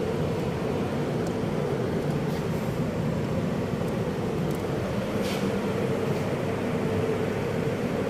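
Three-phase exhaust fan running steadily at its low speed: a constant hum of motor and moving air with a faint steady tone. A brief rustle about five seconds in.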